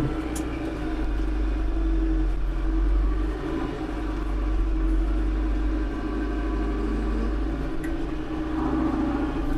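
Branson tractor's diesel engine running steadily at raised working revs, a deep continuous rumble.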